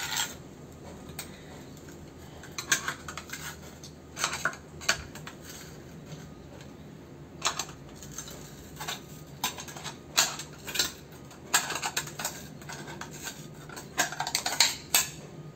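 Metal tool scraping and clinking in short, irregular strokes on the aluminium extrusion of a lighting ballast's housing, working a decal off the metal.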